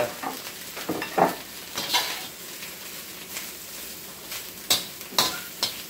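Thin-sliced beef searing in a hot wok: a steady sizzle, with a spatula scraping and clacking against the wok several times as the meat is stirred and turned.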